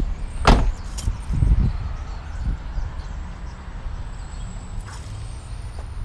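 A car door slams shut about half a second in. A few lighter thumps of footsteps on concrete follow over a steady low outdoor rumble.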